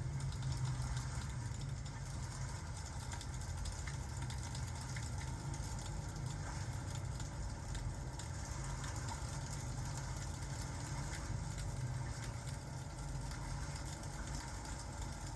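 Steady rain-and-fireplace ambience: a continuous low rumble under an even hiss, with faint scattered crackles.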